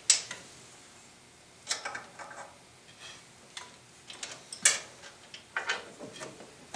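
Scattered light metal clicks and taps, the sharpest about two-thirds of the way through, as a bolt is loosened on a bandsaw's lower blade guide and hand tools touch the metal saw table.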